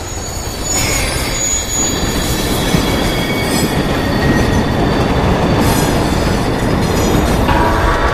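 Subway train running on the tracks with squealing wheels. The loud, steady rumble builds about a second in.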